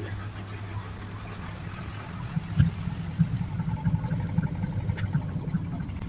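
Whirlpool White Magic Classic top-loading washing machine spinning its tub to spin the soapy wash water out of the clothes. The motor hums low and steady, and an uneven rumble joins in about two seconds in.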